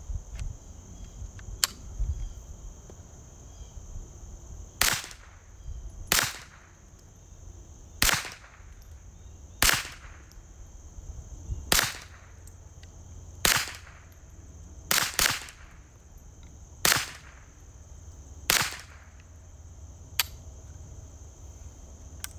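Ruger 10/22 semi-automatic .22 LR rifle firing ten shots, one every one to two seconds, two of them in quick succession about two-thirds of the way through. Each is a sharp crack with a short echo.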